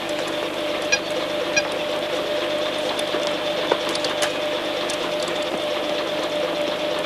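Steady electronic hum of laboratory computer equipment, with two short high beeps in the first two seconds and scattered sharp clicks.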